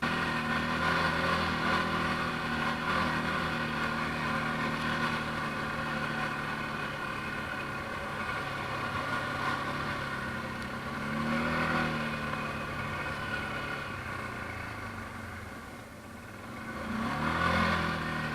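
ATV engine running steadily, revving up twice: once about eleven seconds in and again near the end.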